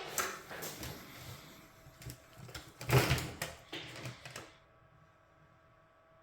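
Short scratchy scrapes and small clicks of a blade working close to the microphone, scraping to expose bare copper for soldering. The loudest scrape comes about three seconds in, and the scraping stops about a second and a half later, leaving a faint hum.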